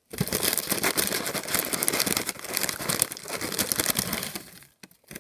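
Paper fast-food bag crinkling and rustling as it is handled, dying away about four and a half seconds in.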